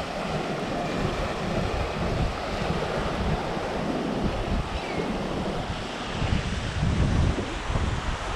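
Shallow seawater washing and sloshing as someone wades through it, with gusts of wind buffeting the microphone.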